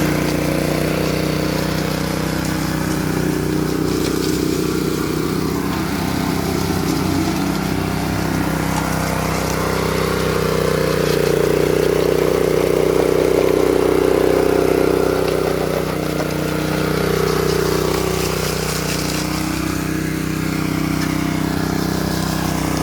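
Small petrol engine of a walk-behind concrete power trowel running steadily, swelling louder for a few seconds about halfway through.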